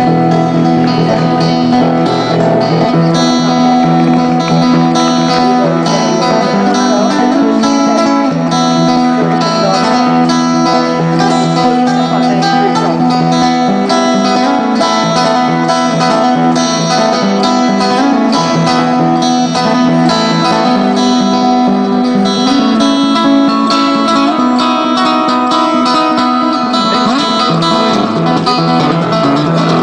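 Acoustic guitar music: an instrumental piece of quick picked notes over a steady lower line.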